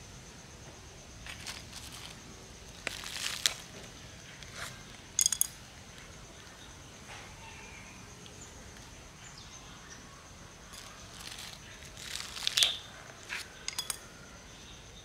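Plastic bag liner and soil rustling and crinkling in short bursts as water spinach cuttings are pushed through the holes of a plastic basket and the soil is pressed down, with a few quick sharp clicks of plastic, loudest about five seconds in and again near the end.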